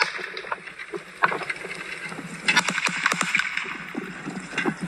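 Irregular scuffing footsteps on dry dirt mixed with rustling and handling knocks, as a person runs with a handheld camera.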